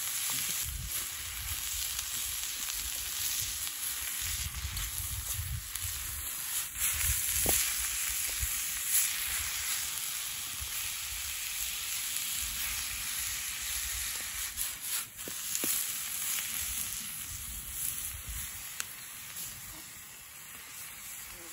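Minced meat with onion and garlic sizzling steadily as it fries in an oiled skillet over a wood campfire, being cooked through. A wooden spatula stirs and scrapes the pan now and then.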